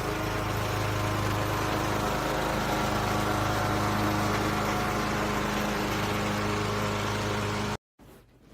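A motor running steadily with a low, even hum over a wide noisy drone; it cuts off suddenly near the end.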